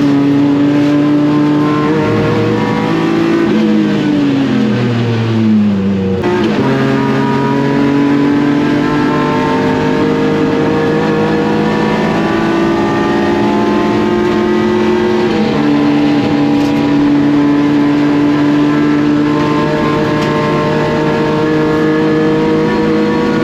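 BMW E36 race car's swapped-in S54 inline-six running hard on track. Its pitch falls over a few seconds as the car slows for a corner, jumps back up about six seconds in as it accelerates again, and shifts again near the middle.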